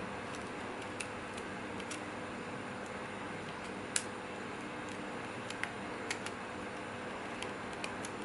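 Small scattered clicks and taps of plastic and metal camera parts as a Sony WX300's lens assembly is worked into its front case, irregular, with the sharpest click about four seconds in, over a steady faint hum.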